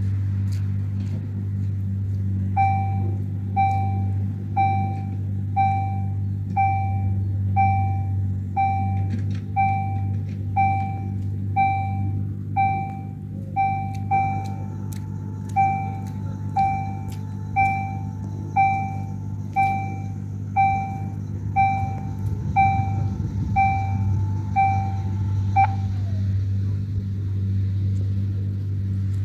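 Level-crossing warning bell sounding about once a second as the crossing closes. From about halfway, a steady motor whine of the barriers lowering joins in. Both stop near the end, the whine dropping in pitch as the barriers come to rest down, over a steady low hum.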